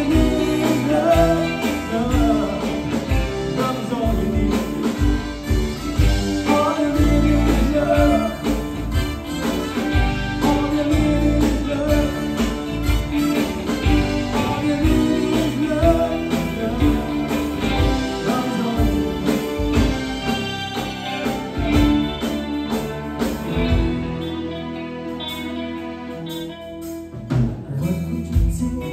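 Live four-piece band playing a song: electric guitar, bass guitar, keyboard and drum kit, with a lead vocal. The music gets quieter for a few seconds near the end, then the drums pick up again.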